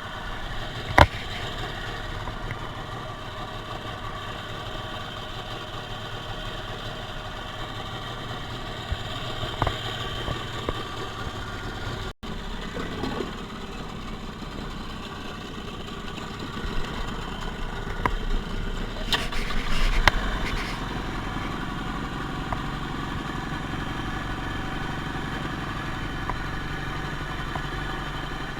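The small engine of a traditional jukung fishing boat running steadily, with a single sharp knock about a second in.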